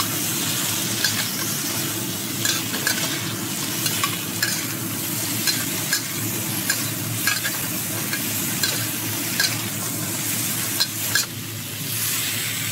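Prawns and vegetables sizzling in a hot carbon-steel wok during a final stir fry, with repeated short scrapes and clicks of the spatula against the wok. The sizzle eases near the end.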